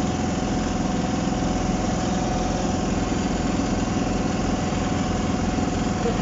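Large excavator's diesel engine running steadily at a constant speed, with no revving or changes.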